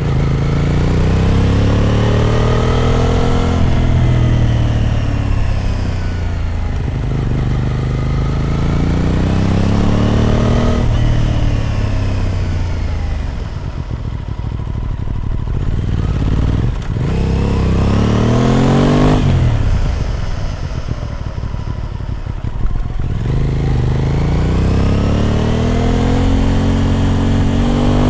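Aprilia RS 660 Extrema's parallel-twin engine through an SC Project exhaust, heard from on the bike while riding. It rises in pitch as it pulls through the revs, then drops sharply at each upshift, about three times. Between the pulls are stretches of lower revs off the throttle.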